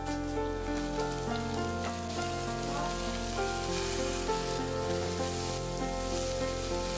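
Sprouted horse gram and ground masala sizzling in hot oil in a pressure cooker pan, with soft instrumental background music.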